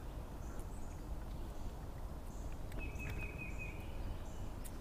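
Quiet open-air lake ambience with a steady low rumble. About three seconds in, a bird gives a short trill lasting about a second, with a few faint high chirps around it.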